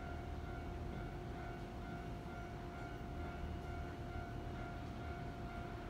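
Keikyu 1000-series electric train standing at the platform, its on-board electrical equipment giving a steady hum with a few fixed whining tones over a low rumble.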